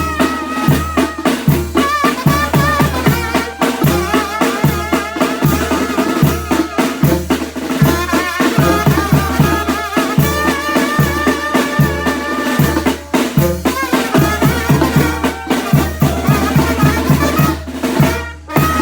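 Oaxacan banda playing live: wind instruments holding sustained, wavering melody notes over a steady beat of bass drum and snare.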